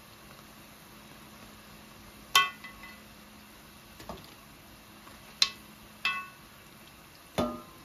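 A kitchen utensil clinking against cookware four times, a few seconds apart, each strike ringing briefly; a softer knock falls between the first two.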